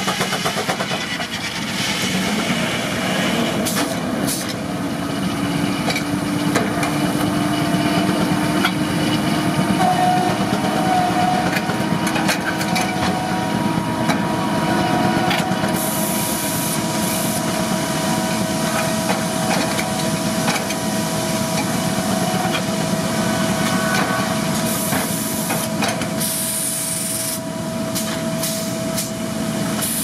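Steam-driven Frick circular sawmill running under load: the head saw cutting a hardwood log as the carriage feeds it, a steady mechanical din with a faint ringing tone from the mill. Two short bursts of hiss come from the air-powered set works and dogs, and a few sharp knocks sound as the log is handled.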